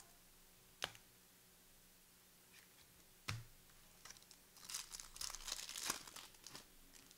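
Trading-card pack wrapper being torn open and crinkled, after two sharp taps about one and three seconds in.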